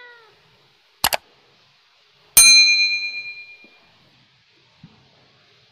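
Subscribe-button animation sound effects: a quick double mouse click about a second in, then a bright notification-bell ding that rings out over about a second and a half.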